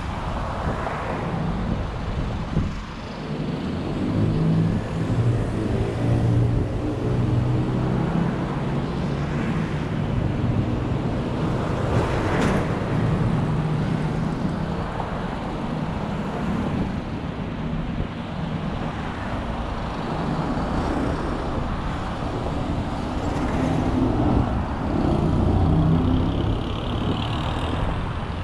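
A car driving along a motorway: steady tyre and road noise with a low engine hum, and a louder swell near the middle as traffic passes.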